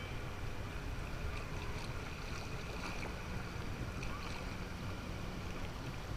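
Sea water lapping and sloshing around a person wading chest-deep, with a steady low wind rumble on the microphone.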